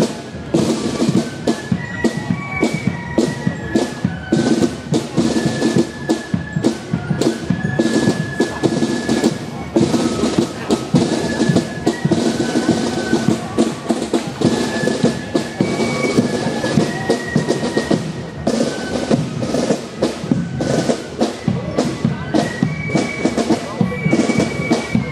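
Marching band music: steady drumming with bass drum and snare strokes under a high, clear melody line.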